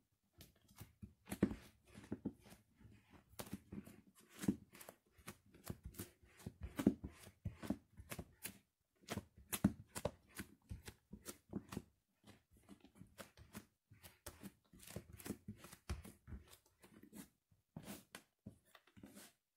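A loaf of white bread being crushed under bare feet: irregular crunching and crackling of the crust, mixed with soft thumps of the feet on the floor.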